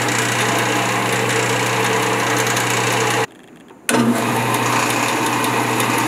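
Porter Cable 14-inch bandsaw running without a cut on its first test run after the riser block was fitted: a steady motor hum with the blade running through the bearing guides, running smoothly. The sound cuts out for about half a second a little past three seconds in, then comes back.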